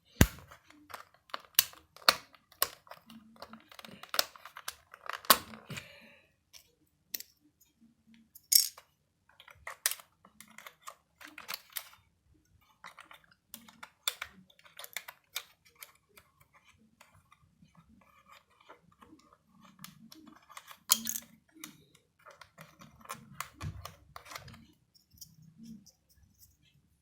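Irregular plastic clicks and clacks from a Logitech PS/2 keyboard being handled and worked on while it is cleaned, with a few louder knocks and a quieter stretch partway through.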